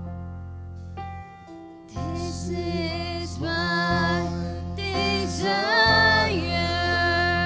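Slow worship music: held electric keyboard chords, then a voice starts singing a slow melody with vibrato over them about two seconds in.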